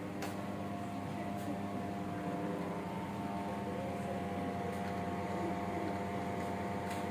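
Steady mechanical hum made of several constant tones over a low noise bed, with a few faint clicks.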